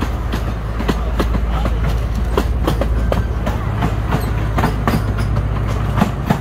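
Zoo ride train running along its track, heard from on board: a steady low rumble with irregular clacks and knocks.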